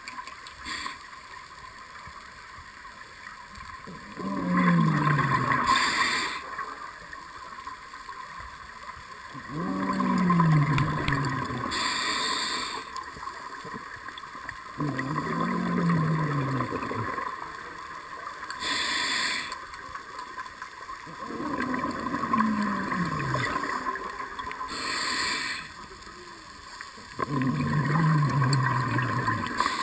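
Scuba diver breathing through a regulator, recorded close by the diver's own camera: about five slow breaths, each a short hiss of inhaled air followed by a couple of seconds of gurgling exhaled bubbles. The breathing is shaky, which the uploader takes as the diver shivering in cold water.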